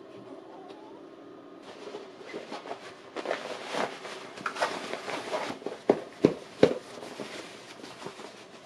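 Heavy canvas rustling and crumpling as the sewn bucket is handled and pulled into shape, with a few sharp taps and snaps after the middle.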